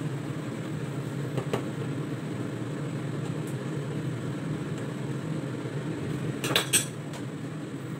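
A metal ladle clinking against a stainless steel soup pot while stirring, over a steady low hum. There is one light clink about a second and a half in, and a quick cluster of louder clinks near the end.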